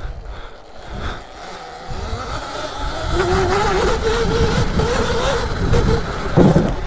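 Electric dirt bike being ridden over muddy ground. Its motor gives a thin whine that rises about three seconds in as it picks up speed and then holds steady, over a low rumble of tyres and wind on the microphone.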